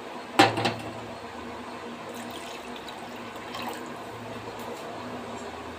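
Water being poured into a kadai of goat trotter curry: a loud splash about half a second in, then a steady pour.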